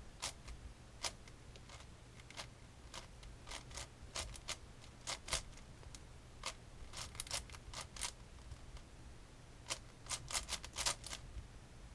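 A 7x7 Rubik's cube being turned by hand while its centres are built: irregular plastic clicks of the layers snapping into place, some single and some in quick bunches of two or three.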